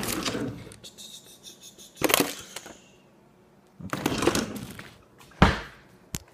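Rummaging in a desk drawer and handling paper: three short bursts of scraping and rustling, then a sharp knock about five and a half seconds in, the loudest sound.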